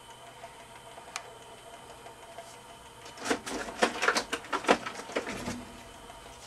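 Small electric motor and gear train of a Department 56 Village Animated Ski Slope running steadily, its gears dry and not yet lubricated. About three seconds in, a burst of clattering and rustling lasts about two seconds.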